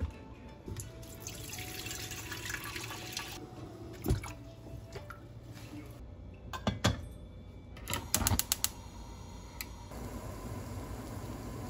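Kitchen sounds: a wall cabinet door knocks shut, then a tap runs for a couple of seconds. Several sharp clicks follow around the middle, typical of a gas hob's igniter, and near the end a pot of water is at a rolling boil with a steady hiss.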